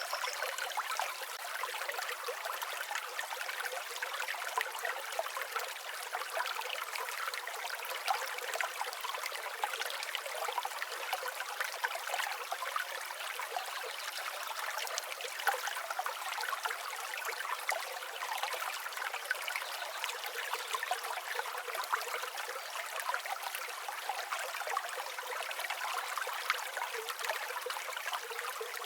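A small stream flowing and trickling steadily, its sound thin and bright with no low rumble.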